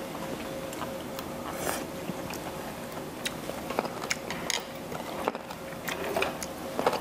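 Someone biting into and chewing crunchy chonggak kimchi (ponytail radish kimchi), with irregular small crunches and clicks.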